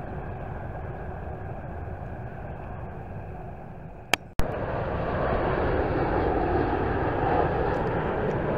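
Steady road noise inside a moving car. About four seconds in, a sudden cut with a click gives way to a louder, even rushing sound of a United Boeing 787-9 jet airliner passing low on final approach.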